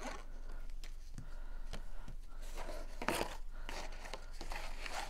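Paper-crafting handling sounds: the tip of a liquid glue bottle scraping along a cardstock tab, then sheets of card rustling and rubbing as they are lifted and folded, loudest about three seconds in.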